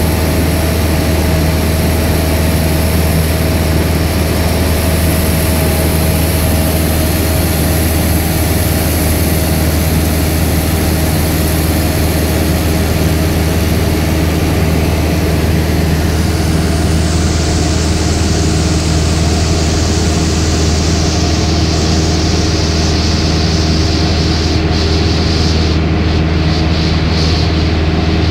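Cessna 172 Skyhawk's engine and propeller running steadily in flight, heard inside the cabin as an even drone with a constant rush of air.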